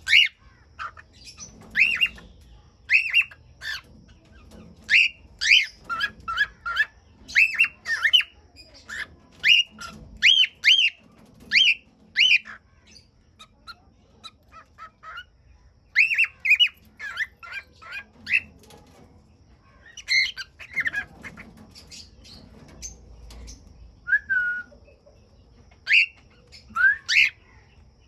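Cockatiels calling: many short whistled chirps and squawks that glide up and down, coming in quick clusters with a few brief pauses.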